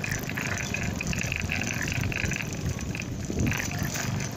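Wind rushing over a phone microphone on a moving motorcycle, mixed with road and traffic noise.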